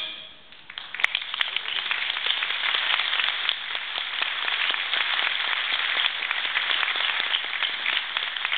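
A middle school concert band's last chord fades out, and just under a second in an audience breaks into steady applause that keeps going.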